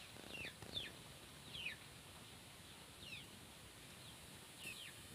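Faint bird chirps: short, quick falling notes repeated about once a second over quiet rural background hiss.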